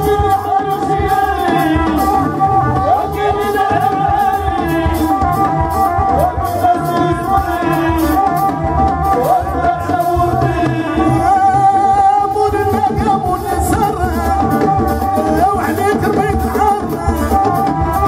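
Live Moroccan chaabi music: a male singer with a band of violin, keyboard, electric bass and frame drums, over a steady hand-drum beat.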